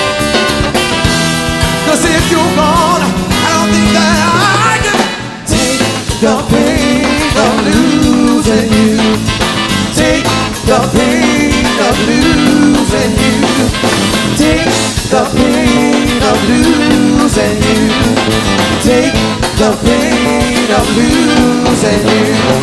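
A live band playing an instrumental passage of a song at full volume, with a brief break about five seconds in before the band comes back in.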